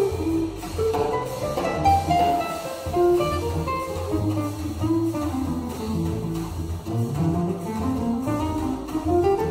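Brazilian choro played live by acoustic guitar, cello and drum kit, with a melody moving over a steady low line. Near the end a long run climbs steadily upward.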